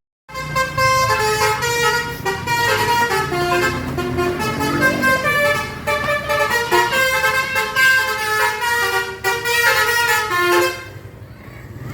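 Indonesian bus 'telolet' multi-tone air horn playing a quick melody of changing notes, over the low running of the bus. It cuts out near the end.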